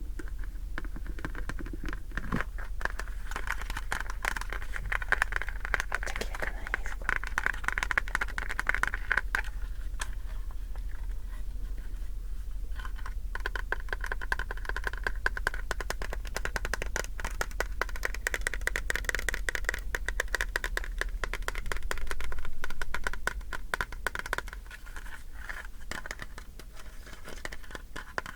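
Close-up scratching on an object: a fast, dense run of small scratches and clicks, easing off briefly about 12 seconds in and getting louder for a moment about 22 seconds in.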